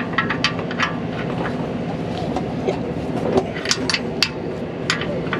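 Irregular sharp clicks and taps of a metal hand tool prying at an exhaust gas temperature sensor's wiring clip and connector, over a steady background hum. The loudest snaps come a little under four seconds in.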